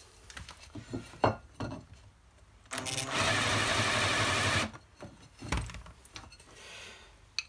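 Cordless drill with a countersink bit running for just under two seconds about three seconds in, cutting the screw holes of a steel starter ring gear deeper so the screw heads sit flush. Metal clinks and knocks from handling the ring gear come before and after.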